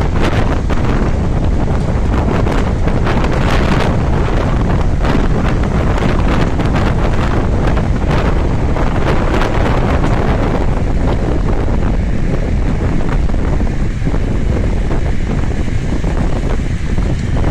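Strong thunderstorm wind gusting with heavy rain, the wind buffeting the microphone into a loud, steady low rumble. The higher hiss of rain and gusts thins out after about ten seconds.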